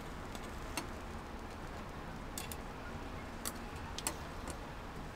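About six light, sharp clicks or taps at irregular intervals over a steady background noise, the strongest about three and a half and four seconds in.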